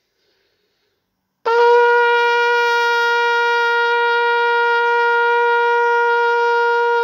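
Trumpet playing one long held note, the top of a slow ascending warm-up scale, starting about a second and a half in and held steady for over five seconds before stopping. The note is started without tonguing, on the breath alone.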